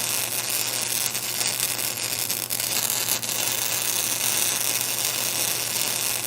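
Welding arc running steadily on a pipe-to-flange joint: an even hiss over a steady low electrical hum, with a few faint crackles.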